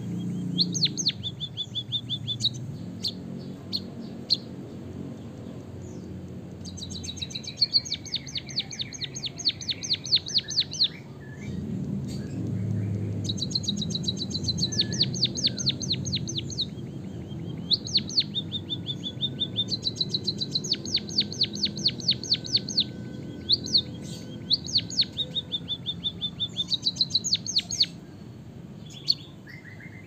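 Caged white-headed munia singing canary-style song learned as fill: long, fast trilled rolls of high, clicking notes. The runs last a few seconds each, with short pauses between them.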